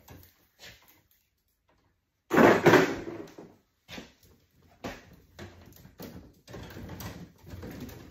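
Electrical cables being handled and pushed around in a breaker panel: rustling and small knocks of wire. A brief, louder clatter comes about two and a half seconds in.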